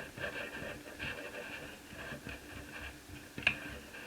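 Small screwdriver scraping and ticking as it turns the screws of a laptop's plastic bottom case, with one sharp click about three and a half seconds in.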